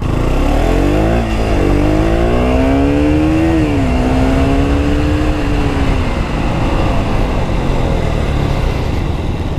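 Husqvarna Svartpilen 200's single-cylinder engine accelerating under a rider. The engine note rises in pitch and drops sharply at an upshift about three and a half seconds in, then climbs more slowly again. After about six seconds it eases off and fades under a steady rush of wind on the helmet microphone.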